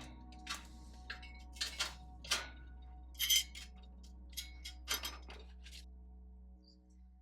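Irregular light clinks and clicks, like small hard objects being handled and set down, over faint background music and a low steady hum that fades near the end.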